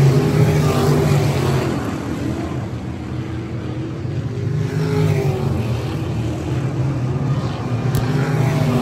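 Several race car engines running on a dirt oval, the sound swelling and fading as the cars come past. It is loudest at the start and again in the second half, with a lull about three seconds in.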